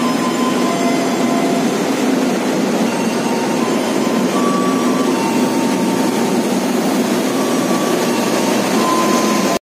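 Steady, loud drone of a train's engine running at a railway station, with faint high tones that come and go. The sound cuts off abruptly just before the end.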